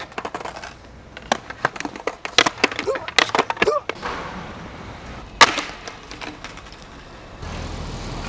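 Skateboard clacking and clattering on pavement: a quick run of sharp knocks through the first half, then one loud clack about five seconds in.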